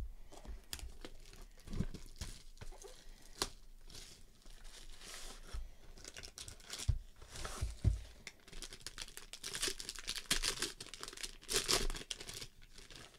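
A trading card pack being torn open and its wrapper crinkled by hand, in irregular bursts of tearing and crackling.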